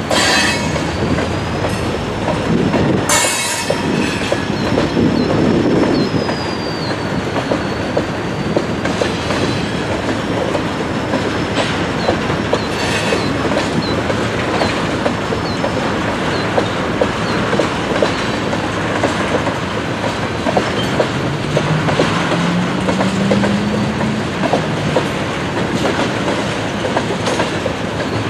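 Freight train cars (covered hoppers and tank cars) rolling steadily through a road crossing: a continuous rumble with wheels clacking over the crossing and rail joints. A thin, wavering wheel squeal rides on top for roughly the first half.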